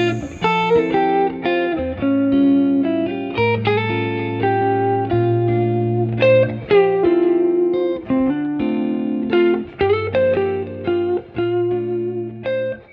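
Outro music: a guitar tune of plucked notes over a bass line.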